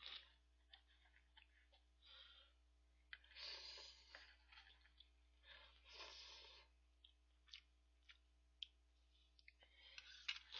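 A person slurping ramen noodles and broth off a plastic cup-noodle lid: two longer slurps about three and a half and six seconds in, and a shorter one near two seconds, with scattered small clicks of chopsticks and mouth sounds in between.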